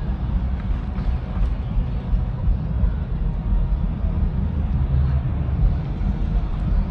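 Outdoor city ambience: a steady, unevenly fluctuating low rumble.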